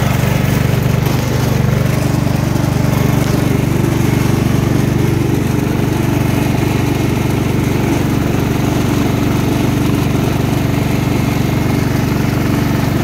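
Garden tractor's engine running steadily under way, heard from the driver's seat, with a slight dip about a second in.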